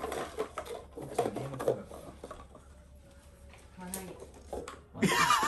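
Light paper cups clicking and tapping against each other and the wooden floor as cats nose into them and knock them about. A louder burst of voice comes near the end.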